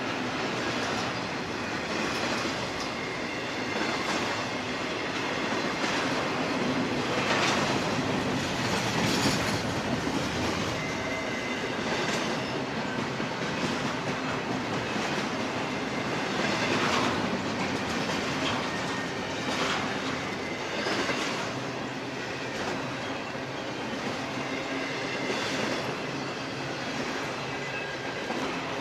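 Loaded double-stack intermodal well cars rolling past: a steady rumble of steel wheels on rail, with recurring clacks and a thin, high-pitched wheel squeal.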